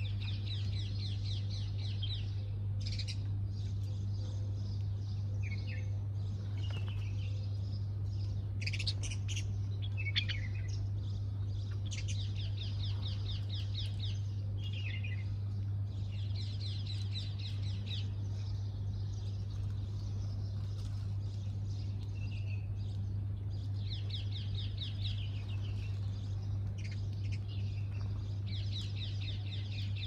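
Small birds chirping, with a fast trilled song phrase of about two seconds repeated every few seconds, over a steady low hum.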